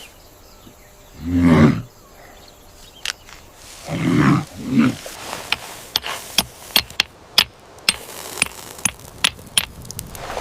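Deep, rough growls: one about a second in and two more around four seconds, followed by a run of sharp, irregular cracks and clicks.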